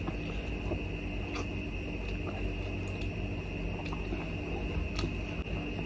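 Quiet chewing and mouth sounds of people eating soft steamed momos, with a few faint clicks, over a steady background hum with a constant high tone.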